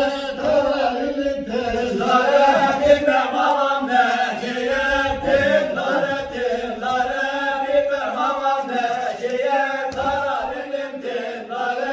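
A group of voices singing a Bayburt ağız barı, the unaccompanied folk dance song sung for the bar dance: a repeated chant-like melody in unison, in short phrases, with no instruments.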